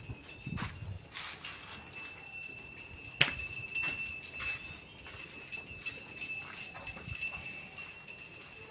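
Cattle neck bells jingling and ringing as tethered cows move and feed, with scattered knocks and one sharp click about three seconds in.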